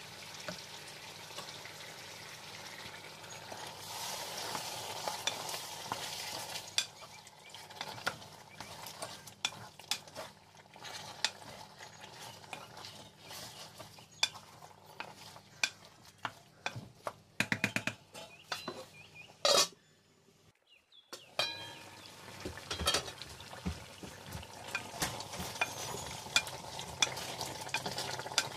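Mutton curry with tomatoes and yogurt sizzling in a pot on high heat while a wooden spoon stirs it, knocking and scraping against the pot. The sound drops out briefly about two-thirds of the way through, then the sizzling and stirring resume.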